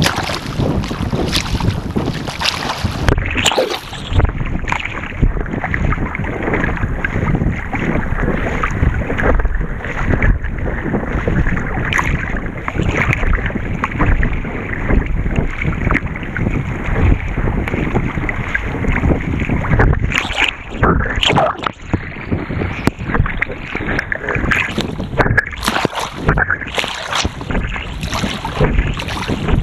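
Wind buffeting the microphone over choppy water splashing and slapping against the bow of an Epic V8 surfski as it is paddled through waves.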